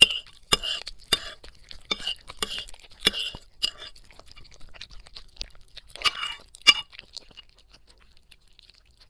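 A toy poodle eating from a ceramic plate close to the microphone: wet chewing and crunching with sharp clinks against the plate about every half second. It pauses around four seconds in, comes back briefly near six to seven seconds, then dies away.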